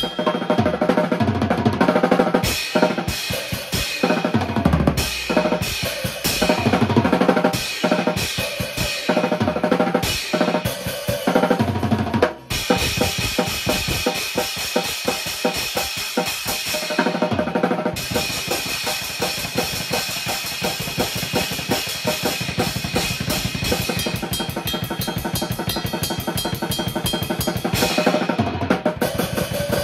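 Drum kit played through a song: a continuous beat of bass drum, snare and cymbals, with a short break about twelve seconds in.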